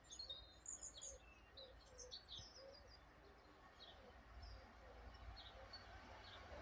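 Small birds chirping and twittering faintly, busiest in the first couple of seconds and sparser after, over a faint low rumble.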